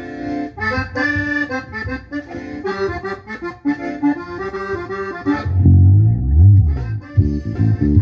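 Zydeco music: an accordion plays a lively melody, and about five and a half seconds in an electric bass guitar comes in loud with low notes, including a slide down and back up.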